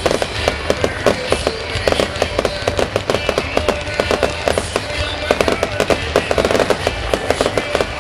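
Fireworks display: a dense barrage of shell bursts, bangs and crackles, several a second, with no pause.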